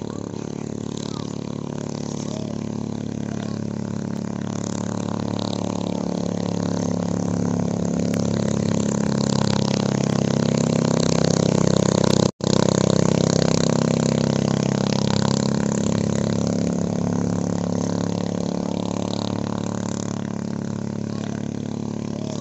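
Small steel longtail boat's 6-horsepower engine running at speed, growing louder as the boat comes past about halfway through, then fading as it moves away. The sound cuts out for a split second just after its loudest point.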